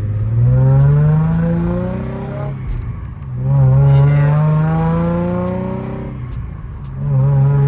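Freshly swapped car engine climbing steadily in revs and dropping back, three times over, held to a modest ceiling of about 3,500 rpm while the new engine is being broken in.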